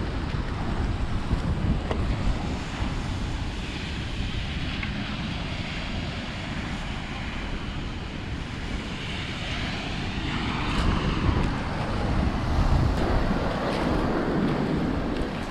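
Wind buffeting the microphone over the wash of ocean waves on the shore, the surf swelling louder about two-thirds of the way through.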